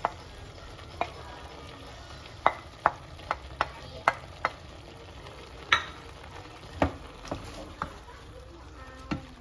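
Chicken hearts and chopped onion frying in a very hot pan, a steady sizzle, with a utensil clacking sharply against the pan at irregular intervals as they are stirred.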